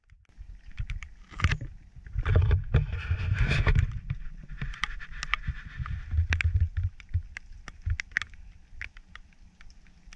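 Raindrops tapping close to the microphone, with a low rumbling on the microphone that is loudest between about two and four seconds in.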